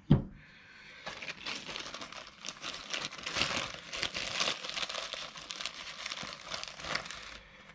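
Plastic parts bag crinkling and rustling as it is handled to get out the small synchro hub springs, starting about a second in and stopping shortly before the end.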